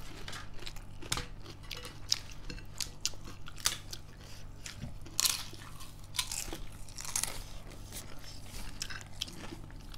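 Close-up chewing and crunching of food, a run of short crisp clicks, over a steady low hum.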